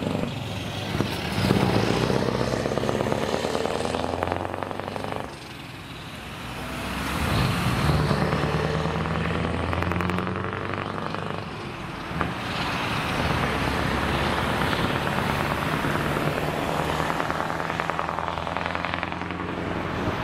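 Diesel semi-truck with an open-pipe exhaust pulling away through the gears. The engine note climbs, drops at a shift about five seconds in, then climbs again and settles into steady running as it drives off.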